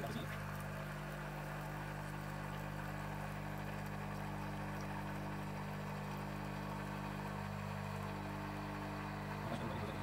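De'Longhi Nescafé Dolce Gusto Jovia capsule coffee machine running its hot-water rinse: its pump gives a steady low buzzing hum while it pushes hot water through the empty brewing head into the mug.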